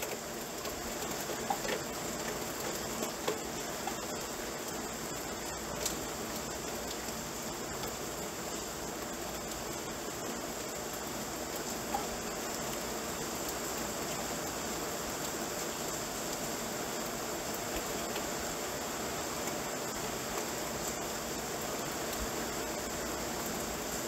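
Rain falling steadily, an even hiss with a few louder drips in the first dozen seconds.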